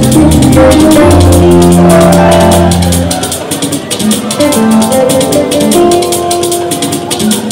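Party music: sustained keyboard notes and a bass line over a fast, even shaker rhythm; the bass drops out about three seconds in.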